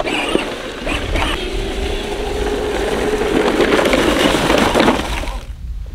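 Battery-powered John Deere ride-on toy tractor driving over dry leaves: a steady electric motor whine under the crunch and rustle of its plastic wheels in the leaves, dropping away about five and a half seconds in.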